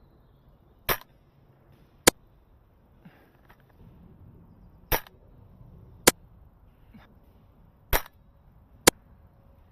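Airsoft gunfire: six sharp shot reports in three pairs, the two in each pair about a second apart.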